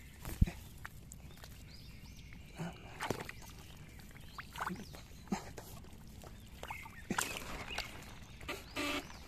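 A hand splashing and sloshing in shallow muddy rice-paddy water, with scattered splashes and knocks, the sharpest about half a second in. Near the end a run of short, evenly repeated buzzing pulses begins.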